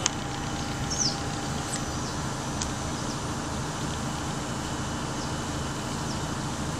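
Steady low rumble of harbour background noise, with a few faint clicks and short high chirps.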